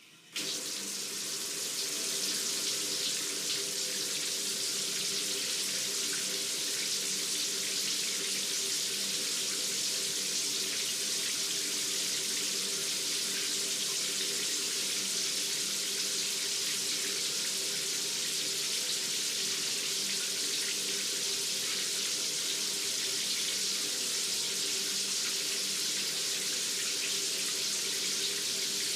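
Shower turned on, the water rising to full flow within about two seconds and then running steadily as an even hissing spray.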